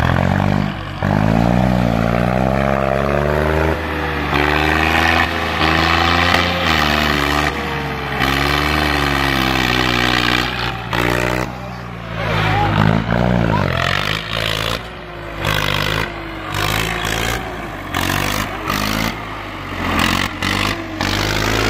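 Swaraj 960 FE tractor's 60 hp diesel engine revving hard under load, its pitch rising and falling again and again as the tractor is thrown around and reared up onto its rear wheels. From about the middle on, sharp knocks and rattles come in over the engine.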